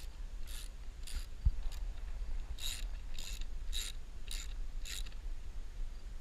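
Ratchet wrench with a 10 mm socket clicking through repeated short back-strokes, about two a second, as a battery terminal nut is cranked down tight. The strokes stop near the end, and there is one dull knock about a second and a half in.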